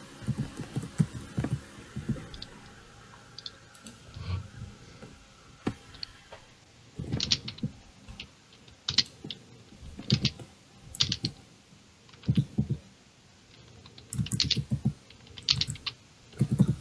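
Computer keyboard typing in short bursts of keystrokes, with pauses of a second or two between bursts.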